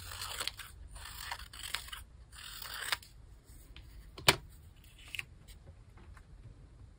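Scissors cutting through paper in several crisp snips over the first three seconds. About four seconds in comes a single sharp click, the loudest sound, as the scissors are set down on the table, followed by faint paper handling.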